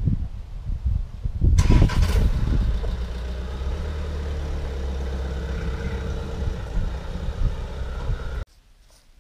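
Wind rumbling on the microphone, then a car engine starts about a second and a half in and settles into a steady idle. It cuts off abruptly near the end.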